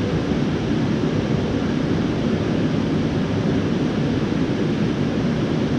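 Steady rush of river water running through rapids, an even noise with no separate events.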